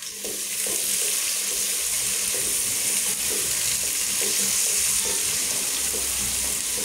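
Chopped onions, green chillies and capsicum sizzling steadily in hot oil in a pot while a wooden spatula stirs them, scraping through the vegetables.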